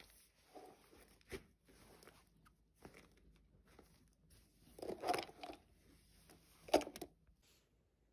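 Things being packed into a fabric backpack: a spiral notebook and other items slid in, giving soft rustles and a few light knocks, with a cluster about five seconds in and the sharpest knock shortly before the end.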